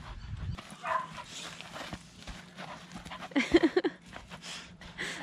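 Australian cattle dog giving a quick run of short barks about three and a half seconds in while chasing a soccer ball, amid scattered soft knocks of the ball being kicked and nosed on grass.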